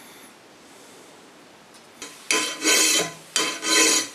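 Hand file rasping across a metal dagger guard clamped in a bench vise: two long strokes, about a second apart, in the second half, with the metal ringing under the file.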